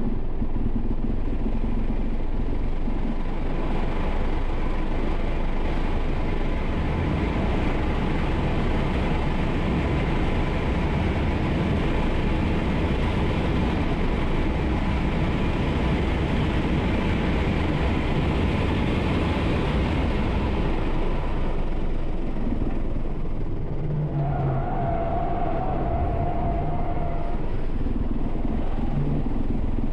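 Wind and tyre noise inside the cabin of a Tesla Model 3 Performance at full throttle, with a faint steady whine from the electric drive. The noise builds as the car passes 130 mph, eases about 21 seconds in as it slows, and a brief high steady tone follows about 24 seconds in as it turns in to a corner.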